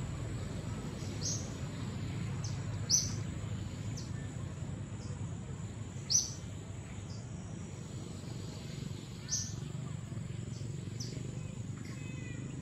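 Outdoor woodland ambience: a bird gives short high chirps every second or two, a few louder than the rest, over a steady high insect tone and a low, even background noise.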